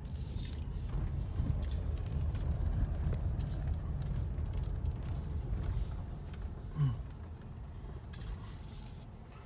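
Low in-cabin rumble of a 2020 Ford Expedition driving, mostly road and drivetrain noise, easing off over the last couple of seconds as the truck slows.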